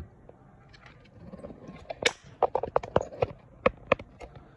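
A quick run of small, hard clicks and taps, about a dozen in two seconds, from phone parts and tools being handled as the iPhone 8 screen and motherboard are connected up.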